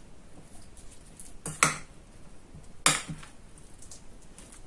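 A spoon stirring a thick mix of sour cream, mayonnaise, chopped mushrooms and herbs in a bowl, quietly, with a few clinks of the spoon against the bowl: two close together about a second and a half in, and one about three seconds in.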